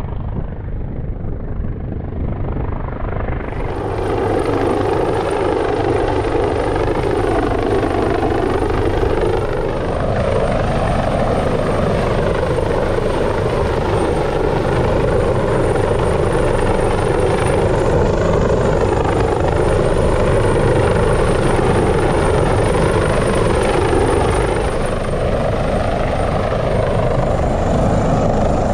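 Sjöfartsverket AW139 search-and-rescue helicopter hovering low overhead during a winch lift: a loud, steady rotor and turbine noise with downwash. It grows louder about three and a half seconds in.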